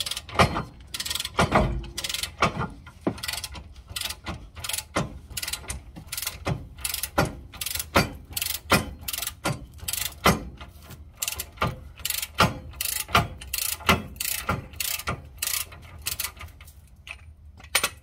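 Ratchet wrench clicking in quick back-and-forth strokes, two or three clicks a second, as it works a lower ball joint nut off a steering knuckle. The nut is slow to come free because the ball joint stud turns with it. The clicking stops near the end.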